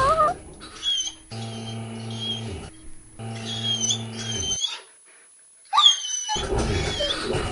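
A dog whining and whimpering in high, wavering cries, over two stretches of a steady electric motor hum from a moving massage chair, each about a second and a half long.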